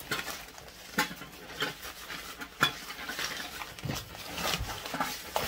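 Fabric bag rustling as a Kelly Kettle's metal fire base is packed into it, with a few sharp knocks of metal parts spread through.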